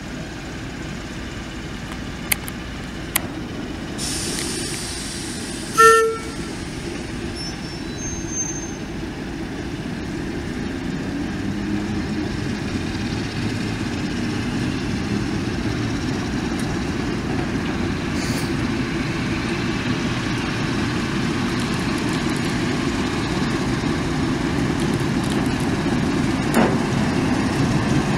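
Diesel shunting locomotive's engine running as it moves slowly closer, growing steadily louder, with one short horn toot about six seconds in.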